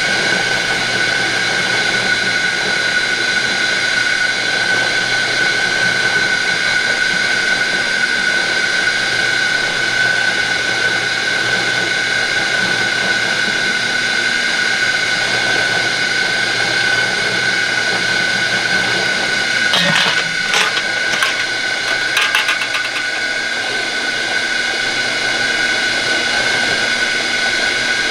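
Electric kudzu-root juicing machine running steadily with a high, even whine as it grinds the roots. A few short clatters come about twenty seconds in.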